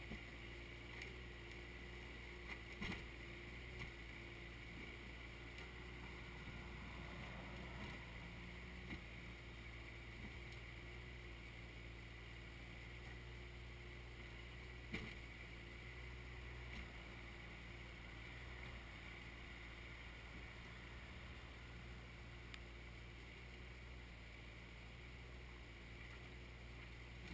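Kioti compact tractor's diesel engine running steadily as the tractor backs away, a low drone with a couple of brief knocks, one near the start and one about halfway.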